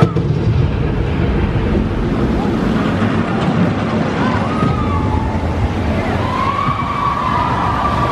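Steady amusement-park background rumble, with a faint wavering high wail for about a second and a half near the end.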